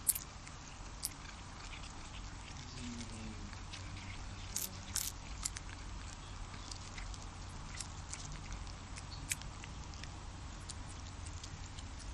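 Cat licking and chewing a moth it has caught: scattered small wet clicks and smacks.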